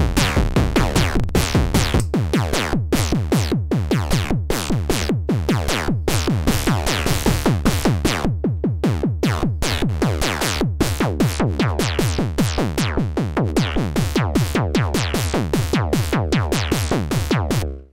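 Moog DFAM analog percussion synthesizer playing its step sequence through both VCOs: a fast, even run of pitched drum hits, each sliding down in pitch. The deep bass drops out about two seconds in, and the pattern stops abruptly near the end.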